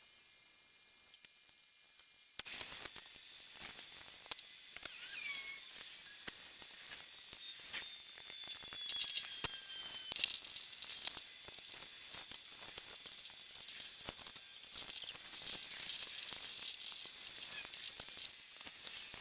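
Welding arc crackling and sizzling, with a dense run of small spatter clicks, starting about two seconds in after a near-quiet start.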